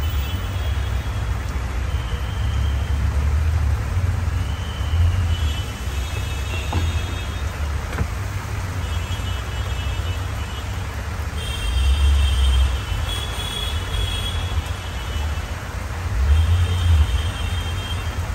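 Steady low rumble of street traffic, swelling louder twice in the second half, with faint high-pitched tones coming and going.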